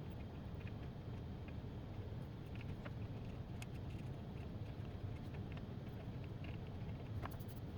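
Faint, scattered light clicks and taps from soldering work on a circuit board, over a steady low hum.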